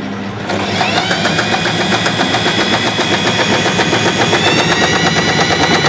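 Usha Janome Excella electric sewing machine running a straight stitch through cloth. Its motor whine climbs as it gets up to speed in the first second, then holds steady with rapid, even needle strokes.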